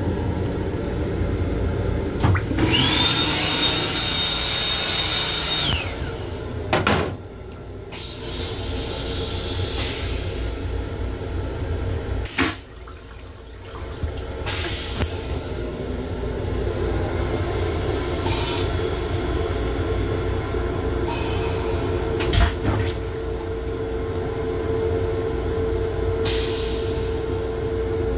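Steady rumble of an M7 electric railcar running, heard from inside its small restroom. About two seconds in, the sink's sensor unit hisses for about four seconds with a steady high whine in it. A few short knocks come later.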